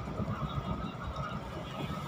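Steady rumble of a Taiwan Railways Chu-Kuang Express passenger coach running at speed, heard from inside the coach: wheels rolling on the rails.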